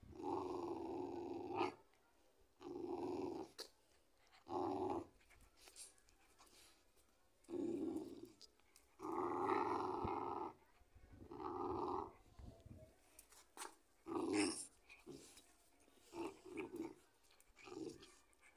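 Young pit bull growling in a string of separate growls, each up to about a second and a half long with short pauses between, as it tugs at a cloth held in a person's hand: tug-of-war play growling.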